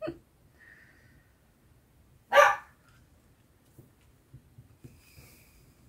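A dog gives a single short bark about two seconds in, with faint small ticks and rustles around it.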